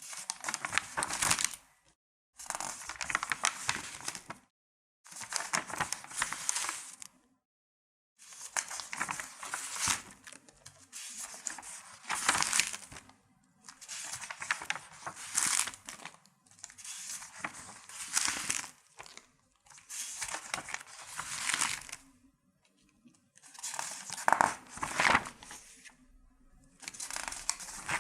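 Sheets of paper being turned over one after another, each turn a rustling swish of about two seconds, about ten times with short pauses between.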